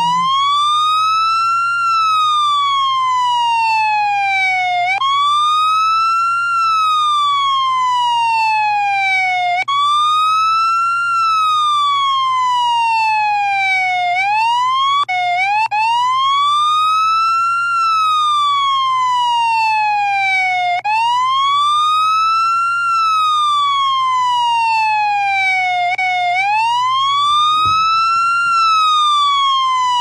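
Police siren in a wail: the pitch rises quickly, then falls slowly, repeating about every five seconds, over a steady low hum.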